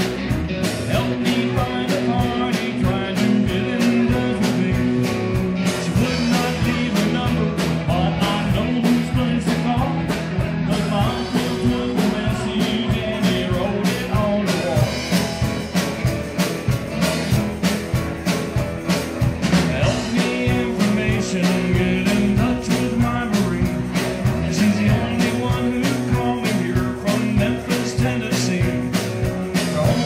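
Live rock band playing: electric guitar, electric bass, Roland keyboard and a Tama drum kit keeping a steady beat.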